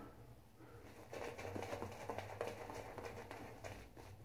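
Faint close-up handling noise: soft scratchy rustling with many small irregular ticks, starting about a second in.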